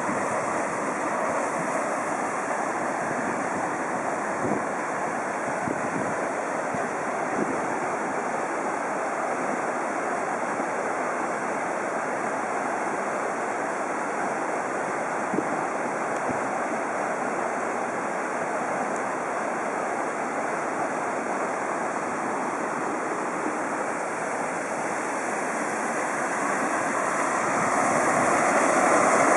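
Muddy floodwater rushing down a small concrete-lined river swollen by torrential rain and running close to overflowing: a steady rush of water that grows louder near the end.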